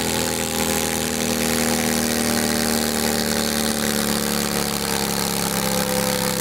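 Garden tractor engine running steadily at an even pitch.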